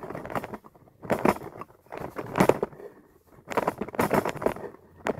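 Handling noise from the camera being moved and set back in place: irregular clusters of taps, clicks and scrapes, several times, with short gaps between them.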